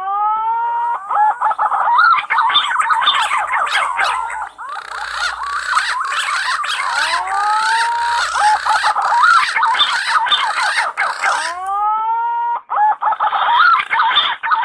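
Punai (green pigeons) whistling: rising whistles that overlap into a dense chorus of several birds, mixed with sharp clicking notes, thinning to single rising whistles near the end.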